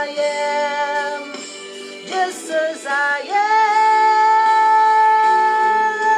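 A woman sings a slow ballad into a handheld karaoke microphone over a karaoke backing track. She holds a note at the start, sings a few short notes, then holds one long high note for about three seconds until the end.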